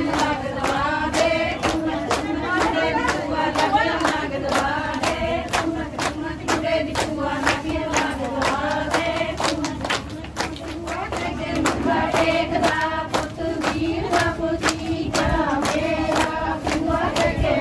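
A group of women singing a folk song together while clapping their hands in a steady beat.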